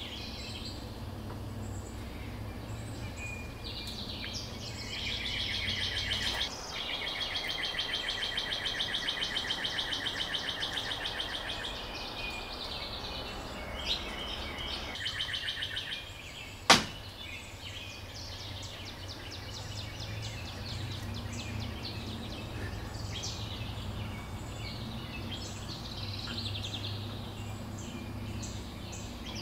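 Backyard ambience with birds chirping and a low steady rumble, with a long fast-pulsing high buzz lasting several seconds early on. About two-thirds of the way through comes one sharp knock, the loudest sound.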